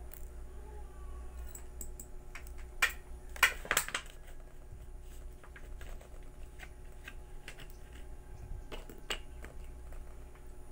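Scattered light clicks and knocks of dishes and a bottle being handled on a dining table, the loudest cluster about three and a half seconds in, over a steady low hum.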